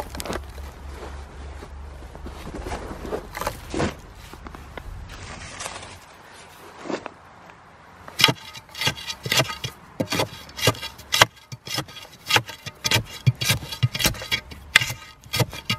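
Dirt and stones scraped and pushed into a fence-post hole, then a digging bar tamping the backfill around a wooden 4x4 post, with sharp thuds about two or three a second from about eight seconds in.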